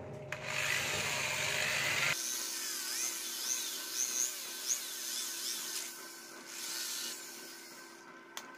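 Hand-held electric drill boring into a small aluminium part, the motor running in bursts with short high squeals from the bit cutting the metal.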